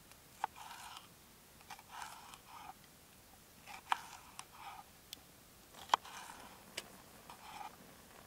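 Kitchen knife slicing a bell pepper on a wooden cutting board: a run of short, crisp crunching cuts through the pepper, broken by several sharp taps of the blade on the board, the loudest about four and six seconds in.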